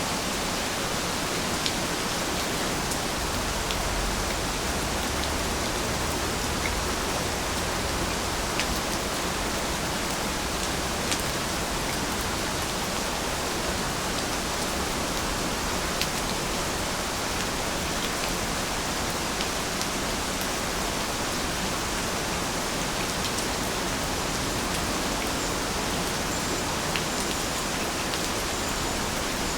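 Steady rainfall, a constant hiss with scattered faint drop ticks.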